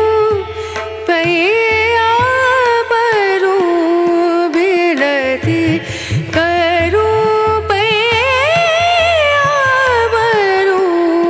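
Background music: a Hindi song with a woman's voice holding long, ornamented notes that slide and waver, over a steady low drum beat.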